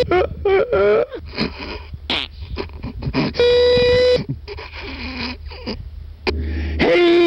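A man's voice making long, steady held wailing notes, broken by wavering vocal sounds, laughter and short breathy gasps.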